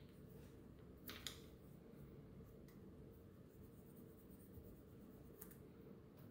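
Faint scratching of sandpaper rubbed by hand on a metal watch case, giving it a satin finish: a few short strokes about a second in and one more near the end, over a low steady room hum.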